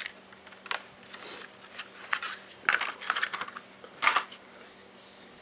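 Clear plastic blister packaging crackling and clicking as it is handled and a phone case is pulled out of its tray: a string of irregular crinkles and snaps, dying away in the last second.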